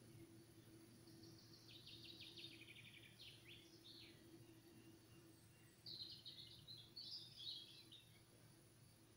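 Faint bird song: two short twittering phrases of rapid high notes, the first about a second and a half in and the second about six seconds in, over a faint steady low hum.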